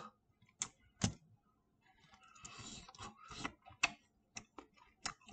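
Faint, scattered clicks and taps of a plastic fork picking at baked cauliflower on parchment paper, with a brief soft rustling about halfway through.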